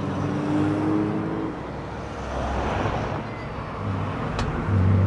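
Modern cars driving past one after another at low speed: engine tones and tyre noise swell and fade as each passes, with a louder low engine note from the next car near the end.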